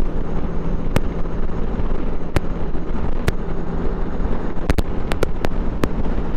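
Motorcycle engine and road wind at highway speed, a steady low drone, heard on a helmet-camera microphone. Sharp clicks cut through it every second or so, coming in a quick cluster in the second half.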